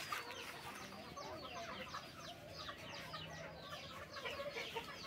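A backyard flock of chickens clucking and calling, with many short, quick, falling chirps overlapping.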